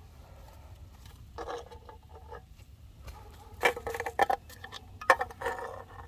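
A run of light clicks and knocks from small hard objects being handled or struck. The loudest come about three and a half to four seconds in and again just after five seconds.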